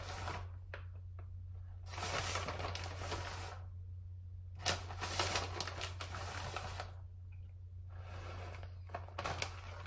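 Plastic bag of shredded mozzarella crinkling and rustling in several spells of a second or two as the cheese is shaken out, over a steady low hum.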